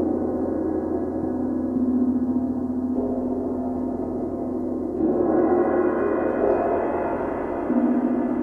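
Paiste 28-inch Symphonic gong and 18- and 22-inch Tyrko Sonor cymbals played with felt mallets: a dense, sustained ringing wash. It swells with fresh soft strokes about five seconds in and again near the end.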